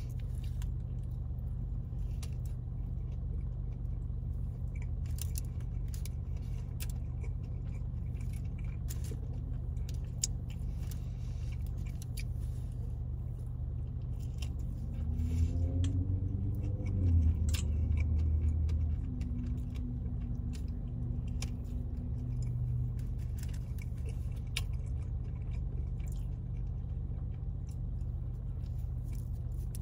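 A person biting into and chewing a McDonald's chicken sandwich, with small scattered clicks and crunches, over a steady low hum. About halfway through there is a brief louder stretch with a wavering pitched hum.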